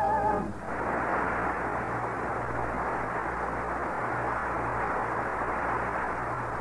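A sung final note with vibrato cuts off about half a second in, then a studio audience applauds steadily, heard through an old radio recording with nothing above about 2 kHz.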